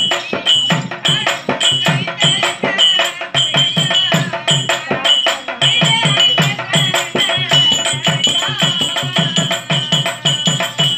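Tamil drama music with no singing: a hand drum beaten in a quick, steady rhythm of about four strokes a second, with small cymbals ringing and a harmonium sounding underneath.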